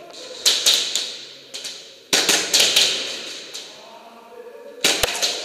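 Airsoft guns firing in quick bursts of sharp cracks that echo in an enclosed room, in three clusters: around half a second in, about two seconds in, and near the end.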